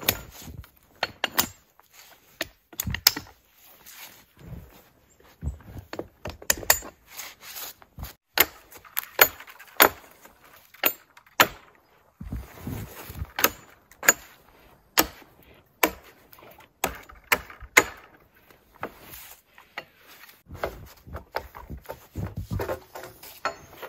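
Small hatchet chopping a dead sapling: a long run of sharp, irregular knocks of wood being struck. Footsteps in snow and rustling come between the strikes.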